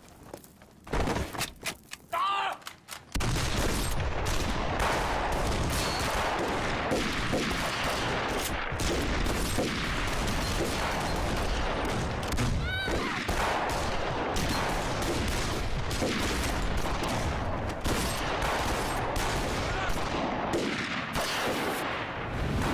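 Battle gunfire from a film soundtrack: a few separate shots in the first seconds, then from about three seconds in a dense, continuous fusillade of rifle fire.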